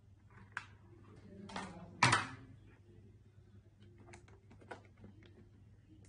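Handling noises from a plastic bottle and a hot glue gun: scattered light clicks and taps, with one louder rustle about two seconds in.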